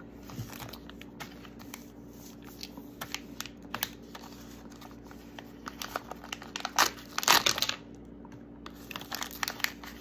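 A small Mini Brands wrapper being torn open and crumpled by hand: scattered crinkling and crackling, with a denser run of crinkles about seven seconds in.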